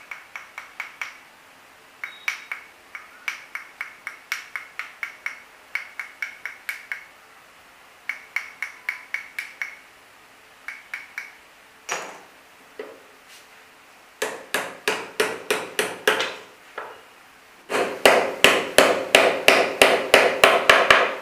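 A hammer lightly tapping magnet segments into their slots in the metal rotor shell of an e-rickshaw hub motor: quick, ringing metallic taps, about five a second, in short runs with pauses between. The taps grow louder in the last few seconds.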